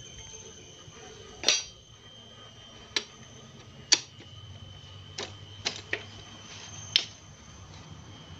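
Metal engine parts clicking and knocking as they are handled in the open crankcase of a Honda Supra Fit motorcycle engine: about seven sharp clicks, irregularly spaced, the loudest about four seconds in, over a faint steady high tone.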